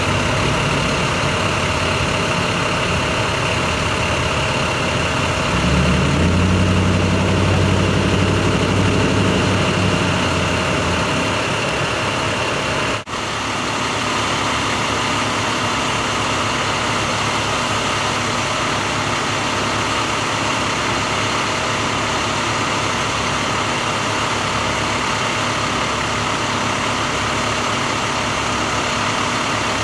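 Heavy truck engines idling steadily, with one engine speeding up for a few seconds about six seconds in and then settling back. The sound briefly drops out about 13 seconds in, and a steady idling hum continues.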